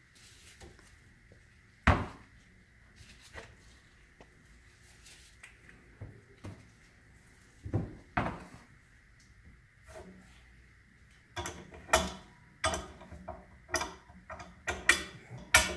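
Metal clicks and clanks of a large adjustable wrench working a tie rod held in a bench vise, turning a stiff new tie rod end onto its threads. One sharp knock comes about two seconds in, and a quick run of clicks near the end.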